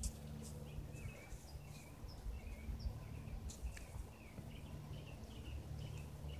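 Small birds chirping, with short twittering calls repeated several times a second, over a low steady drone and a few sharp clicks.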